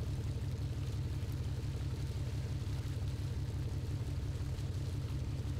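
Fishing boat's engine running steadily: a low, even sound with a fast, regular pulse.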